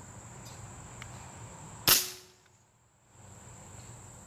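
A single shot from a Benjamin Bulldog big-bore pre-charged pneumatic air rifle, one sharp loud crack about two seconds in, followed by a brief low ring.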